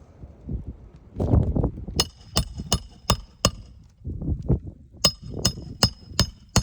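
Metal tool tapping on metal in two quick runs, five strikes and then six, about three a second, each with a short bright ring, typical of roofing work. Duller rustling and scuffing sits between the runs.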